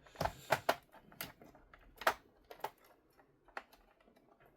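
Irregular sharp plastic clicks and knocks from a Razer Ornata Chroma keyboard's case being handled and pried at a corner, with a cluster of clicks in the first second and a loud one about two seconds in.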